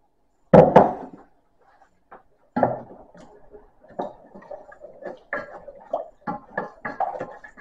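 A loud knock about half a second in as the glass measuring jug is put down on the worktop, then a wooden spoon stirring beef stock into a flour paste in a saucepan, with irregular knocks and scrapes against the pan that grow busier toward the end.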